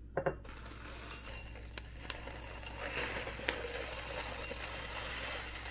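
A glass mason jar clinks twice near the start, then dry loose tea leaves pour into it with a steady rustling hiss and a few faint ticks of leaves striking the glass.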